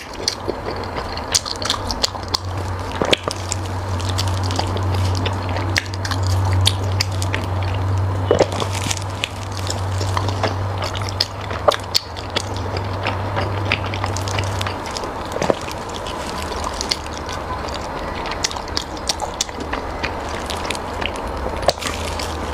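Close-miked eating: wet chewing and smacking with many small clicks of the mouth and lips. A low steady hum runs underneath and stops about two-thirds of the way through.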